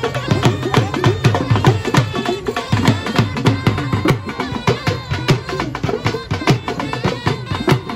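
Live Haryanvi folk music: a large two-headed barrel drum (dhol) beaten in a fast, steady rhythm of several strokes a second, with a wind instrument's melody running above it.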